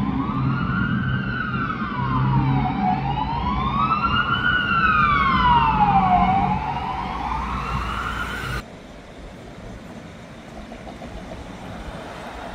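Emergency vehicle siren wailing, slowly rising and falling about every three seconds, over a low engine hum. It cuts off abruptly about two-thirds of the way through, leaving quieter street traffic noise.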